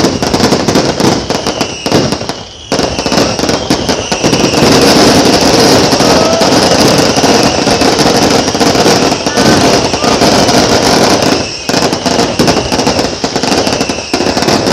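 Fireworks display: a dense, continuous crackle of many rapid bangs and pops, with faint falling whistles. It swells to its loudest in the middle and thins a little near the end.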